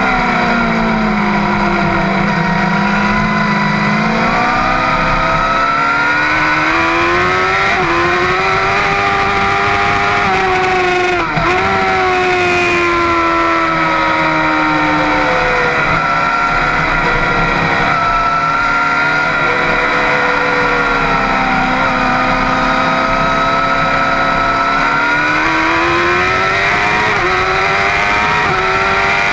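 Middleweight superbike engine running hard while the bike is ridden at speed, its pitch sliding down as it slows for corners and climbing again under acceleration. A brief dip in the note comes about eleven seconds in.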